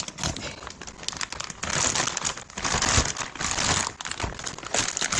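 Clear plastic bag crinkling in irregular bursts as gloved hands handle and open it.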